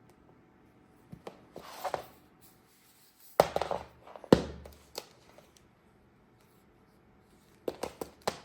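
Handling noise: scattered clicks and taps, with two louder thumps about three and a half and four and a half seconds in, and a quick run of clicks near the end.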